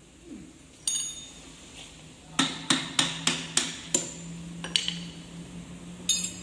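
A hammer striking metal: one ringing clang about a second in, then a run of six quick blows at about three a second, and a few more knocks and a short rattle near the end.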